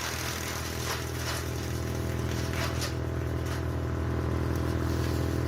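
Tree harvester's diesel engine running steadily at a working pitch, with a few short crackling noises over the drone.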